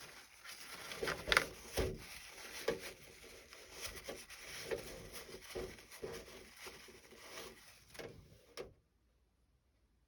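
Irregular light knocks, taps and scraping from hands handling tools and parts at a workbench, cutting off abruptly near the end.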